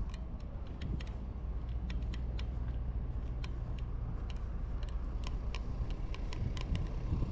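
Outdoor street ambience: a steady low rumble, like distant road traffic, with frequent light irregular ticks over it.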